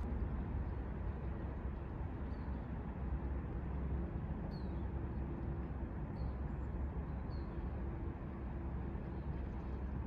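Outdoor ambience by a pond: a steady low rumble, like wind or distant traffic, with a few faint, short, falling bird chirps.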